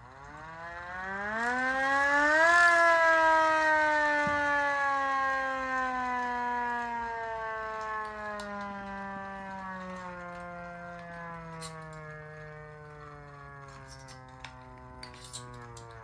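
A siren winding up, its pitch rising to a peak about two and a half seconds in, then slowly winding down in one long falling wail that is still sounding near the end.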